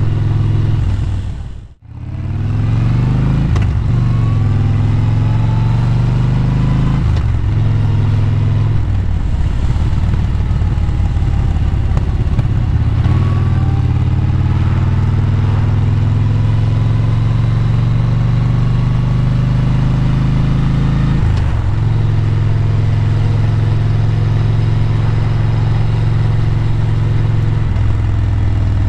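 Motorcycle engine heard from the rider's seat while riding, its pitch climbing and then dropping at each of several gear changes, over steady wind and road noise. The sound fades out and back in about two seconds in.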